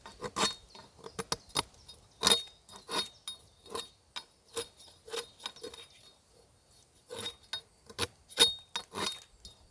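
Ontario Bushcraft machete blade striking and cutting into wood in a series of short, irregular strokes, about one or two a second, each hit with a brief high metallic ring.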